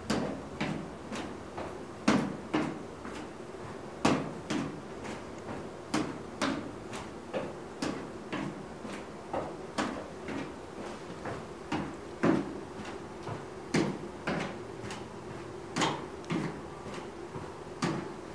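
Feet stepping up onto and down off a plastic aerobic step platform in a steady rhythm, about two footfalls a second, during a three-minute step test.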